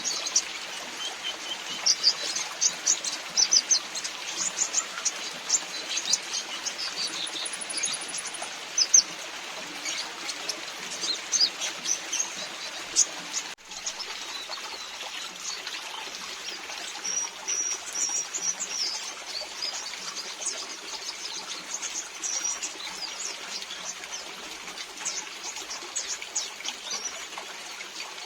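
Sunbirds chirping in rapid, short, high-pitched notes over the steady noise of falling rain and trickling water.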